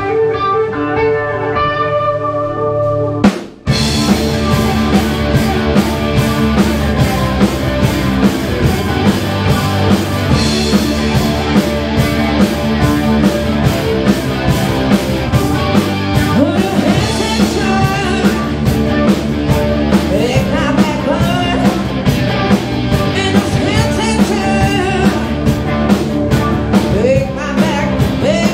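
Rock band playing live in a rehearsal room: guitar notes ring alone for about three seconds, then after a sharp hit and a brief break the full band comes in with drum kit, bass and electric guitars keeping a steady beat. A woman's singing voice joins about halfway through.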